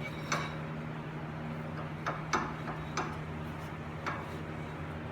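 Loose brake rotor on a Nissan 350Z's newly fitted front hub and wheel bearing, spinning and giving about five light, uneven metallic ticks. The rotor clicks because it is not tightened down with no wheel on it, not because of a bearing fault.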